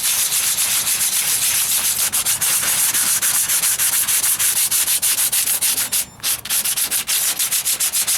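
80-grit sandpaper rubbed by hand in rapid back-and-forth strokes over the filled patch on a truck's wheel arch, with a brief pause about six seconds in.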